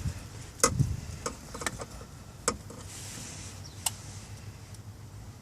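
Hand work on wiring under a dashboard: about six scattered sharp clicks and light taps from plastic connectors and wires being handled, over a low steady hum.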